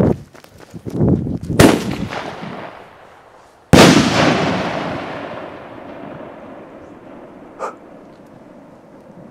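Aerial firework: a sharp bang, then about two seconds later a much louder burst that echoes and rolls away over several seconds.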